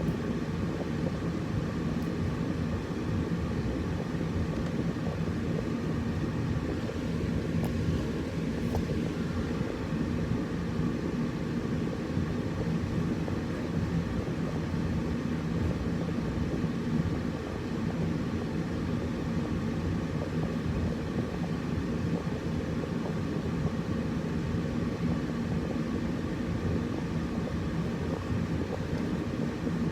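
Air conditioner running steadily: a low, even drone with a faint hum in it, and a couple of faint ticks about eight seconds in.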